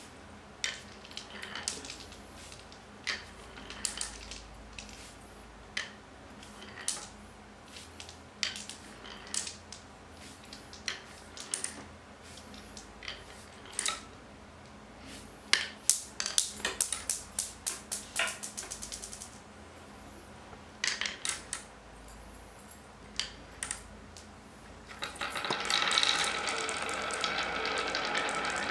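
Small balls clacking on a painted wooden marble run. First there are single clicks, then a fast string of clicks about halfway through. Near the end comes a dense, louder rattle as many balls roll through the wavy wooden channels together.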